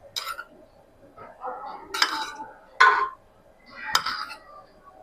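A spoon clinking against cooking dishes about four times at irregular intervals, each with a short ring, as colour is spooned onto the layered biryani rice.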